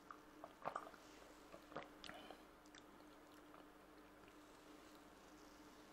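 Near silence: a few faint short mouth smacks and clicks in the first two seconds as a drink is sipped and tasted, over a low steady hum.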